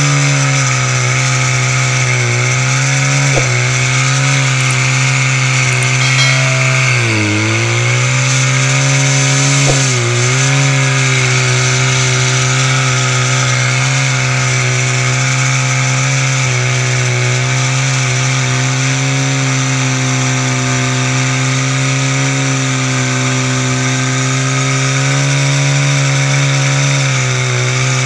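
Portable fire pump's small petrol engine running steadily at high speed. Its pitch sags briefly three times, most deeply about seven seconds in, then recovers.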